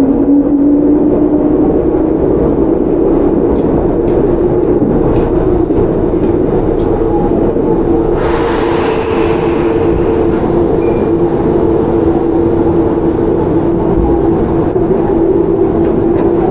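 Tokyu 9020 series electric train running at speed, heard from inside the car: the traction motor and inverter tone rises slightly at first and then holds steady over the rolling noise of wheels on rail. About eight seconds in a hiss comes in and fades away over a couple of seconds.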